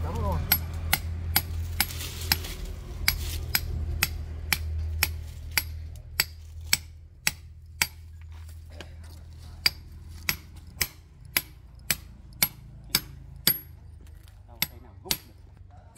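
Hand hammer striking concrete and brick to chip out a fence wall: a steady series of sharp blows, about two a second, with a short pause a little past halfway. A steady low hum runs under the first half.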